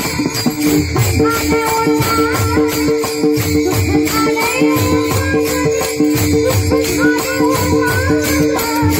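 Devotional Warkari bhajan music: small brass hand cymbals (taal) clashing in a steady rhythm of about four strokes a second, over two steady held tones and low beats, with the long-necked veena plucked.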